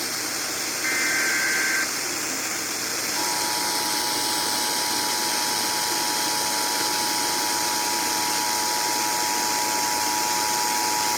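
Emergency Alert System tones received over FM radio. About a second in there is a short SAME digital header data burst. Two seconds later the EAS two-tone attention signal (853 and 960 Hz together) starts and holds steady over constant radio hiss, announcing a severe thunderstorm warning.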